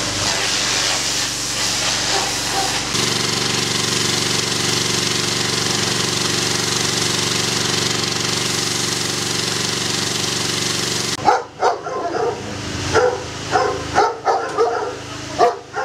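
Pressure washer running: a steady hiss of the water jet over the hum of its motor. It cuts off abruptly about eleven seconds in and gives way to dogs barking repeatedly.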